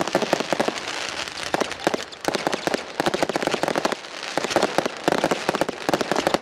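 A 500-gram Cafferata Xplosion X091 fireworks cake firing salvos of bursting shells: a dense rattle of sharp pops and bangs, with brief lulls about two and four seconds in.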